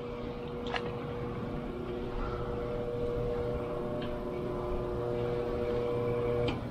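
A motor running with a steady, even-pitched hum, with a couple of faint ticks about a second in and near the middle.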